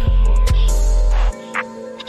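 Plugg-style rap beat with no vocals: a deep 808 bass note holds and cuts off suddenly just over a second in, leaving held synth tones and ticking hi-hats.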